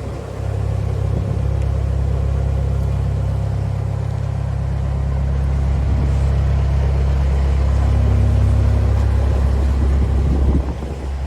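Narrowboat's diesel engine running hard with a deep, steady rumble, building slightly and then dropping suddenly near the end as it is throttled back, while the boat is manoeuvred through a bridge hole past moored and oncoming boats.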